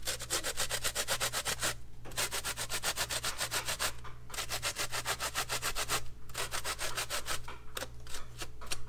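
Key lime rubbed against a stainless steel box cheese grater to zest it: quick rasping strokes in runs of about two seconds with brief pauses between.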